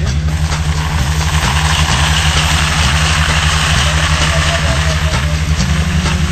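Background music with a steady low bass line stepping between notes. A loud rushing noise swells over it from about a second and a half in and fades out after about five seconds.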